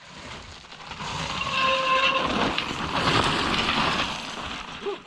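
Mountain bike rolling fast over loose trail with a steady rumble of tyres and frame. A high squeal of the brakes rings out for under a second, about one and a half seconds in.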